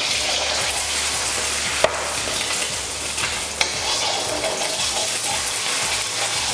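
Ingredients frying in hot oil in a pan: a steady sizzle while they are stirred, with two sharp clicks about two and three and a half seconds in.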